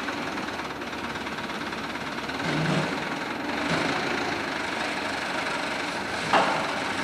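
An engine running steadily, with one sharp knock about six seconds in.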